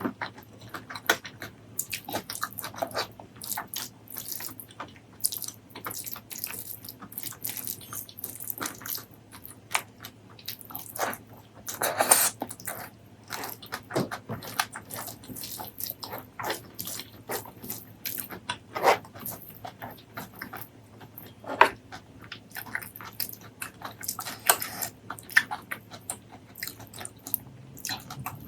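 Close-miked messy eating: wet chewing, lip smacking and biting, an irregular stream of sharp clicks and squelches with a few louder bites.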